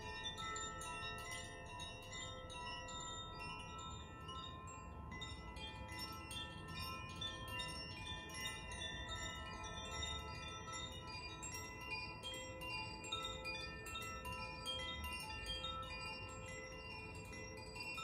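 Two hand-held Koshi and Zaphir tuned chimes, gently swung so their clappers strike the rods inside at random, giving a continuous cascade of overlapping bell-like tones at many pitches.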